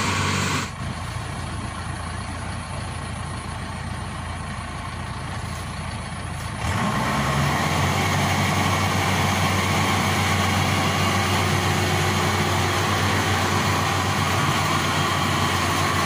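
Crawler rice combine harvester's engine running steadily as the tracked machine works through deep mud. The engine sound drops abruptly about a second in and comes back louder near seven seconds.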